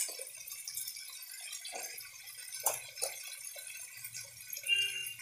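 A few light clicks of a small plastic spice spoon against the stainless-steel bowls of a masala spice box as spices are scooped out, over a faint low hum.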